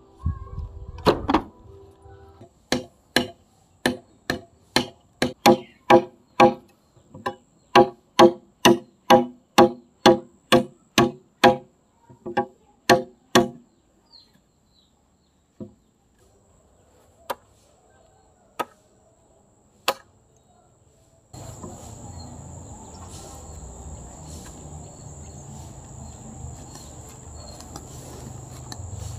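A tool striking bamboo about twice a second for some eleven seconds, each blow ringing with a hollow note, then a few single knocks. From about three-quarters through, a steady background hiss with a high, thin insect buzz.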